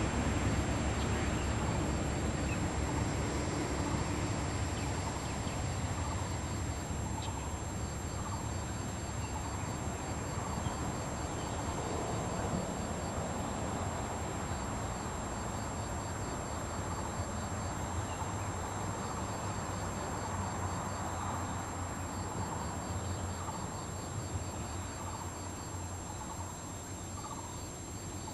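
Outdoor pond ambience: a steady low rumble with faint bird calls recurring every few seconds and runs of faint high-pitched chirping.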